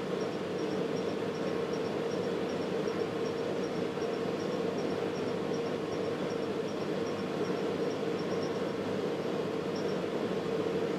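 Steady whooshing of the HP 3562A dynamic signal analyzer's cooling fan as the instrument runs its power-up calibration, with faint high ticks about two or three times a second that stop near the end.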